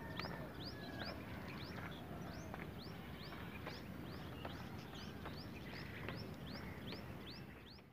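A small bird repeating a short, high chirp over and over, about two to three a second, over faint outdoor background noise.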